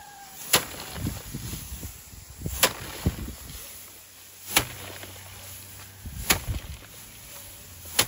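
Bundles of harvested rice stalks beaten by hand against a wooden threshing frame to knock the grain loose: a sharp whack about every two seconds, with softer knocks and rustling of straw in between.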